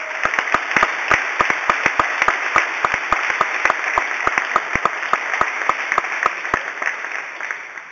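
Congregation applauding, with one person's quick, sharp claps close by, about four or five a second. The close clapping stops near the end and the applause dies away.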